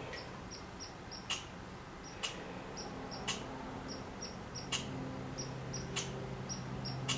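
Quiet outdoor ambience: short, high chirps repeating several times a second, with sharp ticks about once a second. A low steady hum joins about halfway through.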